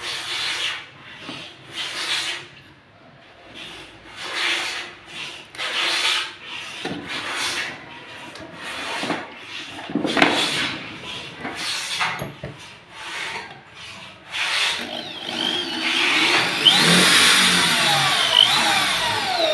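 Repeated short scraping and rubbing strokes as a steel hydraulic bed-lift arm is shifted against the wooden side panel. About three-quarters of the way in, a corded electric drill runs, its whine sliding up and down as it drives screws through the lift arm's mounting holes.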